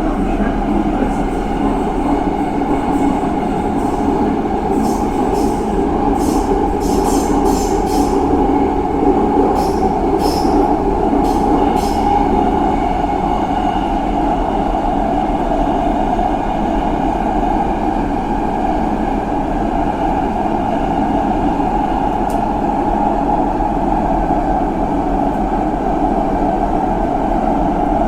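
Subway train running with a steady, loud rumble. A cluster of short, sharp, high-pitched sounds comes in about five to twelve seconds in.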